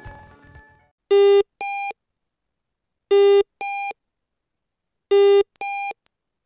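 Small passive speaker salvaged from an alarm clock, driven with a square-wave signal by an Arduino Uno, beeping in pairs: a short lower beep followed by a higher one at about twice the pitch. The pair repeats every two seconds, three times, and the lower beep is the louder of the two.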